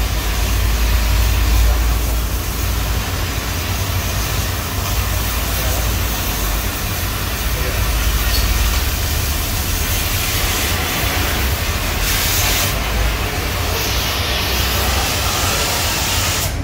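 Oxygen cutting torch burning into the steel wall of a safe: a loud, steady hiss of gas and burning metal, with a low rumble that eases after about three seconds.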